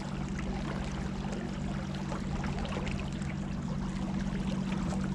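A small boat under way on the river: water rushing and splashing past the hull over the steady hum of its motor.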